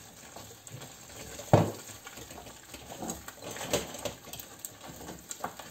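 Wooden spoon stirring a thick cod-and-cream paste in a stainless steel saucepan, scraping and tapping against the pan, with one louder knock about a second and a half in.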